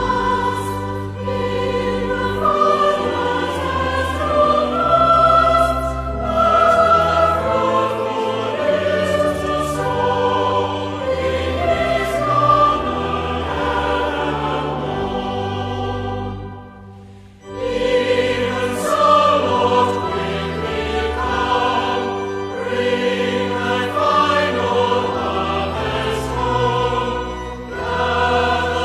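Choir singing a hymn with low sustained accompaniment, broken by a short pause about two-thirds of the way through before the singing resumes.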